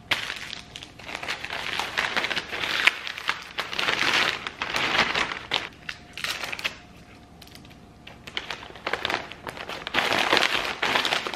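Plastic packaging crinkling and rustling as hands handle a bubble-wrapped bundle and a plastic mailer bag, peeling its seal strip and folding it shut. The crinkling comes in irregular bursts, with a quieter pause a little past the middle.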